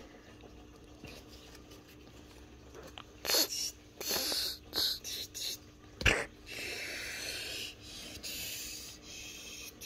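Plush toys rustling and brushing against each other as a hand digs among them in a fabric storage bin, in several short bursts, with one sharp knock about six seconds in.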